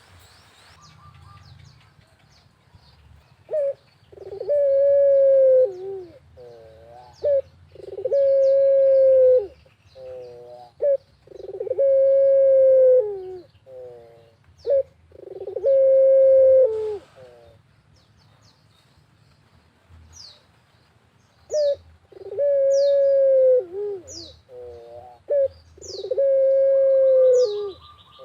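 Puter dove (Barbary dove) cooing: a repeated phrase of one long drawn-out coo followed by a few short stuttering notes. It comes about four times, pauses for a few seconds, then comes twice more. Faint high chirps of small birds are heard behind it in the second half.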